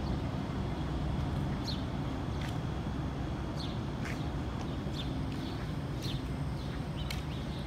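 A bird chirping repeatedly: about eight short, high, falling chirps at irregular intervals, over a steady low city hum.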